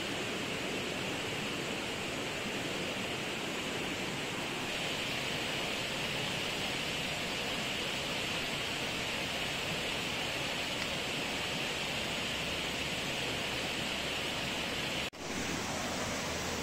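Steady hiss of night-time forest ambience, strongest in a high band, cut off for an instant about fifteen seconds in.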